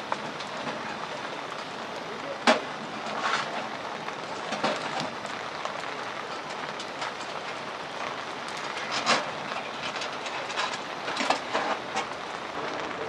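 Wood fire crackling in a small wood-burning stove with its door open, a steady hiss broken by irregular sharp pops and clicks, the loudest about two and a half seconds in.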